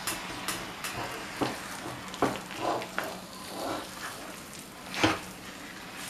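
Metal spatula scraping and knocking against a kadhai while a thick tamarind and jaggery paste is stirred on the heat, the paste sizzling as the jaggery melts. It comes as a series of irregular scrapes, the loudest about five seconds in.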